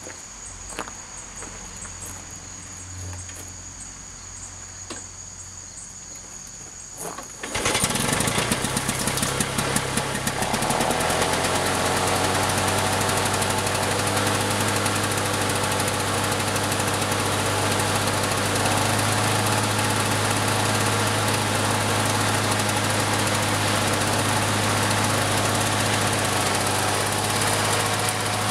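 Lawn-Boy 10520 mower's two-stroke engine catching on a cold start about seven seconds in, then running steadily at speed. Before it starts, crickets chirp steadily.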